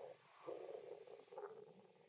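Near silence: a faint steady background hum, with a few soft, brief swells over it.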